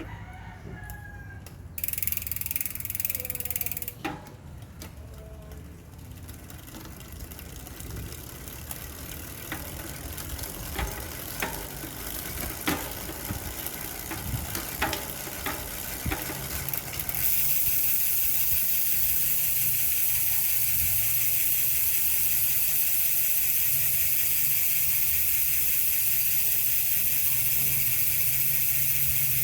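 SRAM X9 rear hub's three-pawl freehub clicking as the wheel freewheels: a brief fast buzz of clicks about two seconds in, then slower, separate clicks, then a steady, louder fast buzz of clicks from just past halfway.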